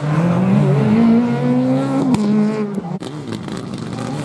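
Škoda Fabia rally car's engine accelerating hard, its pitch climbing, with a sharp crack at a gearchange about two seconds in. After a break near three seconds, a second rally car's engine comes in, its pitch rising and falling.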